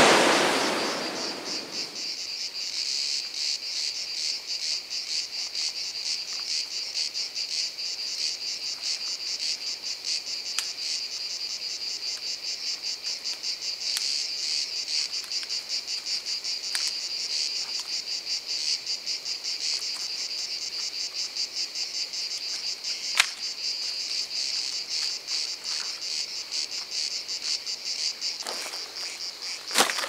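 Insects chirring steadily, a high-pitched, rapidly pulsing drone, after ocean surf fades out in the first second or two. A few sharp clicks come through, the loudest about 23 seconds in, and dry dead branches crackle near the end as they are handled.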